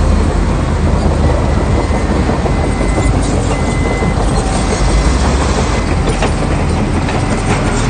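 Heavy diesel earthmoving machinery running: a loud, steady, rumbling engine noise with no pauses.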